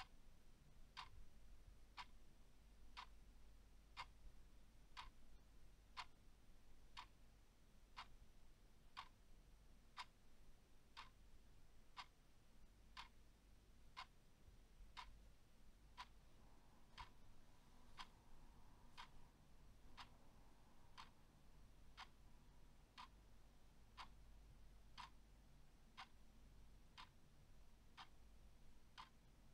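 A clock ticking faintly and evenly, one tick a second, over a faint low hum.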